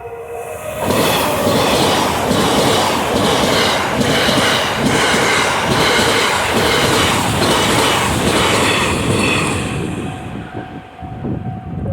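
The TRAIN SUITE Shiki-shima (JR East E001 series) passes over a level crossing, its wheels clattering rhythmically over the rail joints for about nine seconds. The crossing's two-tone warning bell rings at the start and comes back through as the train fades away near the end.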